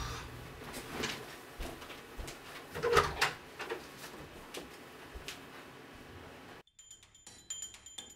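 Faint scattered knocks and rustles of movement in a small room, with a louder cluster of knocks about three seconds in. Near silence from about two-thirds of the way through.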